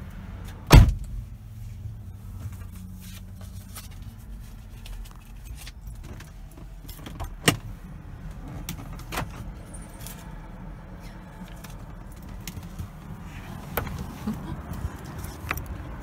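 A car door shuts with a loud thump about a second in. Under it the car idles with a low, steady rumble, and a few sharp clicks and knocks come later.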